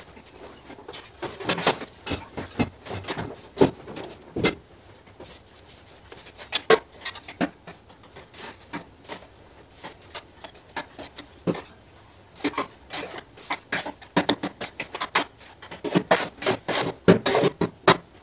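Sand mix being loaded into a cinder-block machine's mold: irregular gritty scrapes, patter and sharp knocks in clusters, with no vibrator running yet.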